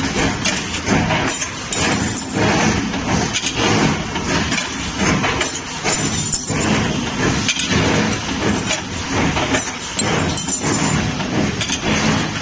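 CNC steel-wire stirrup bending machine running through its cycle: wire fed through the rollers and bent at the head, a steady mechanical rumble with repeated metallic clanks and clicks.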